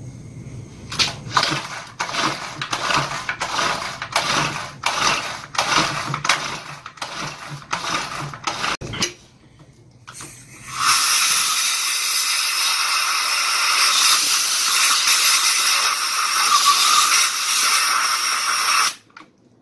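The recoil starter of a Honda GX35 four-stroke brush cutter is pulled over and over, cranking the engine with the spark plug out and a rag over the plug hole to drive cleaner out of the cylinder. After a short pause, a compressed-air blow gun hisses steadily at the engine for several seconds, then cuts off suddenly near the end.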